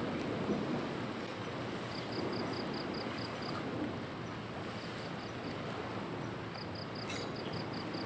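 Sea waves washing against a rocky shore with wind, a steady rushing noise. An insect chirps in short rapid trains of high pulses, about five a second, three times, and there is a single brief click about seven seconds in.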